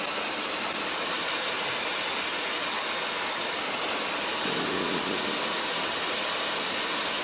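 Steady, even hiss on the aircraft's headset intercom audio in flight, the radio static that the pilot blames on his squelch.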